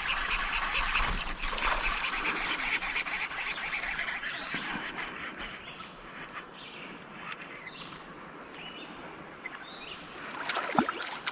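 Outdoor river ambience: birds calling in short chirps over a steady high-pitched hum and hiss. A louder clatter comes near the end.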